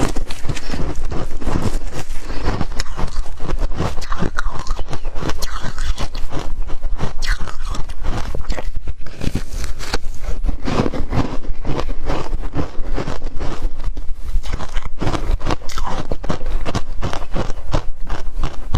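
Close-miked crunching of ice being bitten and chewed, a dense, irregular stream of sharp cracks that goes on without a break.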